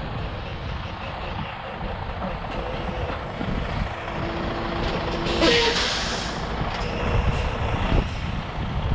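Wind buffeting the microphone over a low rumble. Near the middle a short steady tone sounds, then a loud hiss of air lasting about a second.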